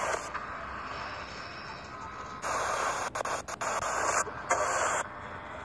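Ghost box sweeping through radio frequencies: choppy static and snatches of broadcast sound that cut in and out abruptly. It gets louder about two and a half seconds in, with a few brief dropouts.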